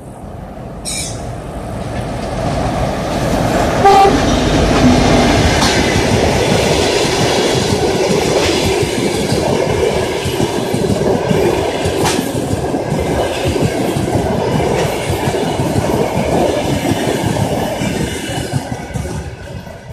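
Diesel-hauled passenger train passing close by: the rumble builds over the first few seconds, a short horn blast sounds about four seconds in, then the coaches' wheels clatter over the rail joints in a steady run that falls away near the end.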